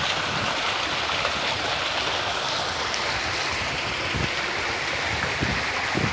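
Fountain jets splashing into their basins: a steady rush of falling water.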